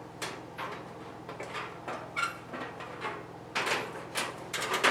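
Metal cabinet of a Kero World KW-11F kerosene heater being lifted up and over the heater and fitted into place: a string of knocks, clicks and scrapes that come thicker near the end.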